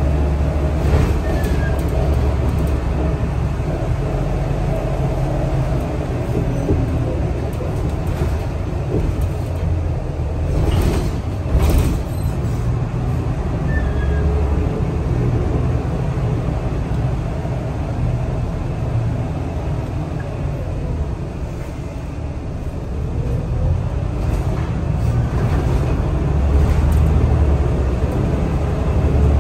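Scania L94UB city bus under way, heard from inside the passenger saloon: the engine and drivetrain rumble with road noise and interior rattles. It eases off about two-thirds of the way in, then rises in pitch and runs louder near the end as the bus pulls away again.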